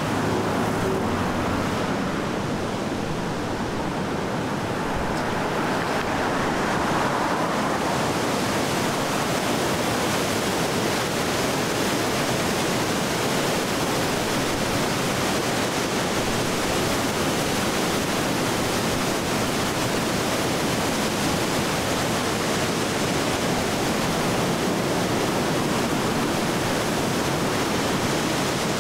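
River in flood surging through rapids over the falls: a loud, steady rush of water, fuller and hissier from about eight seconds in.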